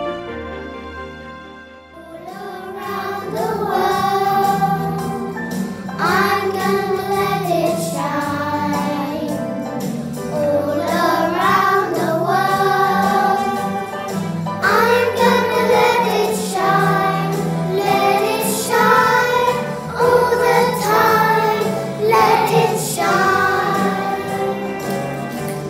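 Instrumental background music fading out, then a group of children singing together over instrumental accompaniment from about two seconds in.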